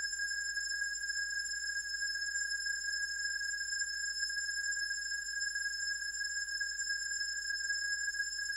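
Electronic music of pure sine tones held perfectly steady: a louder middle tone comes in at the very start over several thin, high tones, with no change in pitch.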